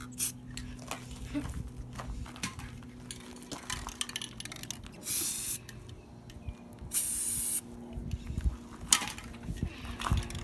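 Aerosol spray paint can sprayed in two short hissing bursts, each about half a second long, among small clicks and knocks.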